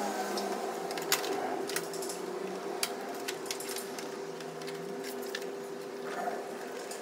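Scattered light clicks and taps of wires and plastic fairing parts being handled and clipped into place on a motorcycle's front end, over a steady mechanical hum with one held tone.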